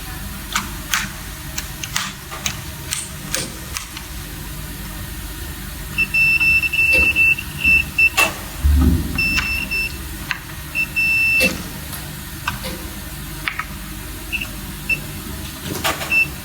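Multimeter in continuity-test mode giving a run of high-pitched beeps, some short and some held for about half a second, as the probes are touched across the wired terminals; the beep signals a continuous, correctly made connection. Sharp clicks come in the first few seconds and a single low knock midway.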